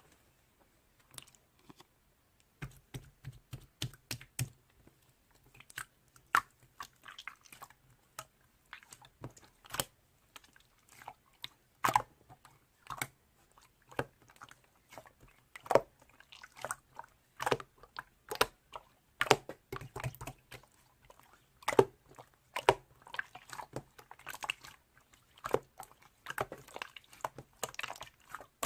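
Slime being squished and pressed by hand, giving many irregular sticky clicks and pops. It starts sparse and becomes steady after about two and a half seconds.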